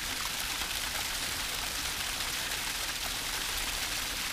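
Steady hiss of water with a few faint scattered ticks, cutting off suddenly at the end.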